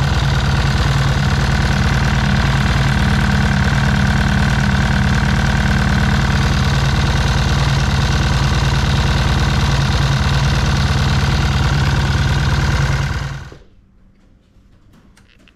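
1970 Triumph T120R Bonneville's 650 cc parallel-twin engine idling steadily for an ignition timing check, then dying away about 13 seconds in.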